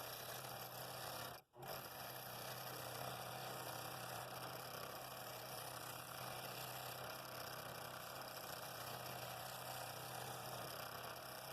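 Scroll saw running steadily as it cuts wood, a continuous buzz with a low hum, broken once by a momentary dropout about a second and a half in.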